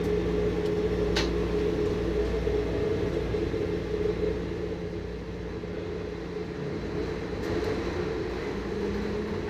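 Taipei Metro Wenhu Line rubber-tyred automated train running along its elevated guideway, heard from inside: a steady rumble with a humming drive tone, and a single sharp click about a second in.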